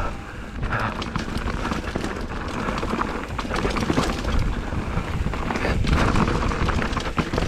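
Mountain bike riding fast down a rocky trail: tyres and frame rattle and knock over the rocks in a rapid jumble, with wind rumbling on the microphone.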